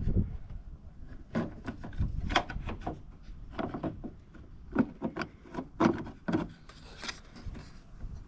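Irregular clicks and knocks of the cargo-door lock and handle assembly being pushed back into the door and fitted together, about a dozen separate knocks.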